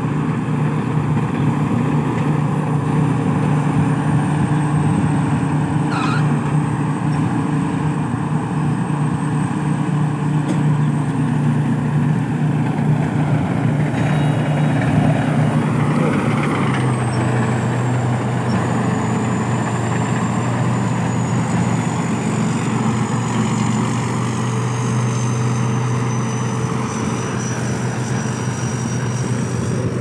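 Rice combine harvester's diesel engine running steadily under load, its pitch stepping down a little about halfway through, with a thin high whine above it that slowly falls in the second half.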